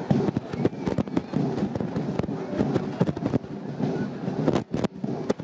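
Crowd of people chattering in a stadium, with many sharp cracks or pops at irregular intervals throughout.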